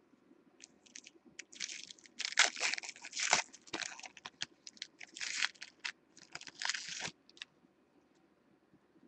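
Foil trading-card pack wrapper crinkling and tearing as it is ripped open by hand, in irregular crackly bursts that stop about seven seconds in.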